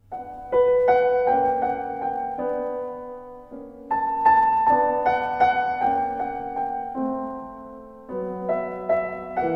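Background piano music: a soft melody of notes and chords, each fading out, in phrases that start afresh about every four seconds.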